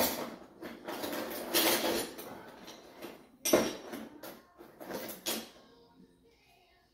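Rummaging through a cardboard box of metal door hinges: clinking, scraping and rustling in several irregular bursts that die away after about five and a half seconds.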